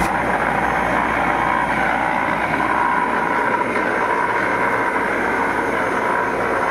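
Electric regenerative ring blower for aeration running steadily: a loud, even, noisy rush of air with a hum, pushing out a lot of air and pressure. It is being test-run and working properly.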